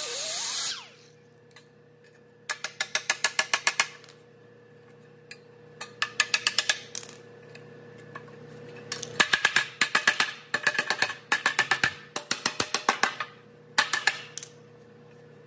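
A loud power tool stops within the first second. Then a hand ratchet clicks in seven short runs of rapid, even clicks.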